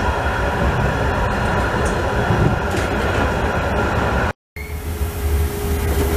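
Tram running on rails, heard from inside the driver's cab: a steady low rumble with a few faint clicks. The sound cuts out for a moment about four seconds in, then the rumble resumes with a steady whine that slowly rises in pitch.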